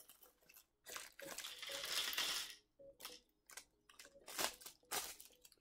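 Clear plastic LEGO parts bag being crinkled and torn open: a long stretch of crackling plastic, then a string of short crinkles as it is handled.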